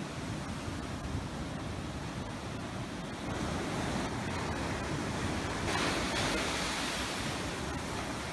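Ocean surf breaking on a beach: a steady wash of noise that swells louder from about three seconds in and peaks a little past the middle as a wave comes in.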